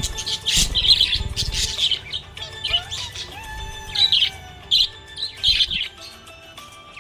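Budgerigar chirping in quick, bright bursts, with music playing underneath.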